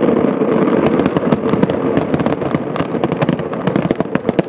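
Fireworks at the close of a display: a dense rumble of bursts that gives way, about a second in, to a rapid, irregular run of sharp crackling pops.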